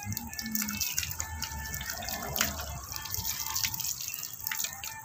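Water splashing and dripping as a small dog is washed by hand on wet concrete, in many short irregular splashes.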